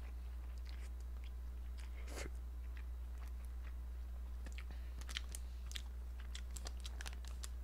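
A person chewing a mouthful of instant ramen noodles close to the microphone, with small wet mouth clicks that gather in the last few seconds, over a steady low hum.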